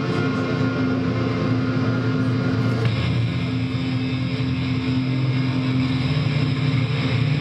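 Electric guitar played loud through an amplifier, a thick, noisy drone of held low notes with no clear rhythm. The held notes shift about three seconds in.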